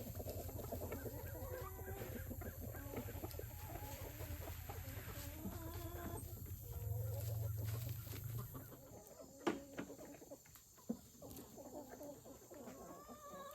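Domestic hens clucking over a steady low hum that cuts off about two-thirds of the way through; a few short knocks follow near the end.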